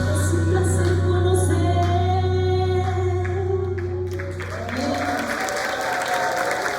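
A live band and singers hold the final chord of a Christian worship song. The low bass note stops about five seconds in as the audience breaks into applause.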